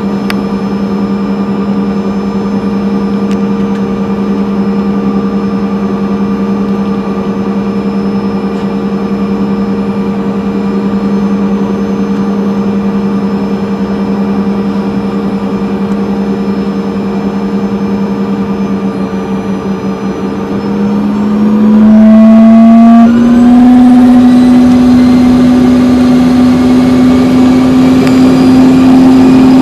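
Bombardier CRJ200's rear-mounted General Electric CF34 turbofan engines heard from the cabin: a steady whine at taxi power, then about 21 seconds in the engines spool up, growing louder with the whine stepping up and then slowly rising in pitch as power is brought up for takeoff.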